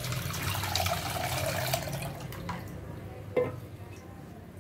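Tamarind water trickling and splashing from a squeezing hand into an unglazed clay pot, tapering off after about two and a half seconds. A single sharp knock comes about three and a half seconds in.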